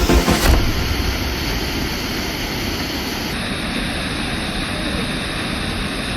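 Waterfall: a steady rush of falling water. Music in the background stops about half a second in.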